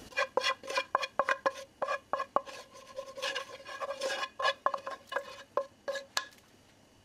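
Wooden spoon knocking and scraping against a metal skillet held over a pot, a quick irregular run of taps with the pan ringing after each, as the oil and fried bits are scraped out into the pot. The tapping stops about six seconds in.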